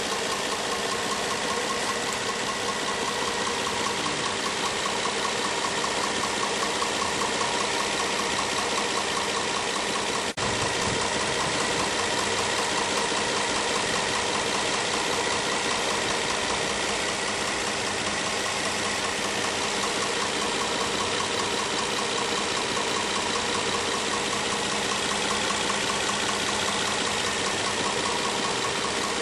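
2010 Nissan Maxima's 3.5-litre V6 idling steadily with a repeated knocking noise from the engine, though the car is nearly new at about 1,400 miles.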